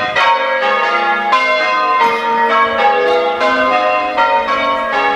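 The ring of six church bells at St Peter's, Kirkthorpe, being change rung, the bells struck one after another at about three strikes a second with no break.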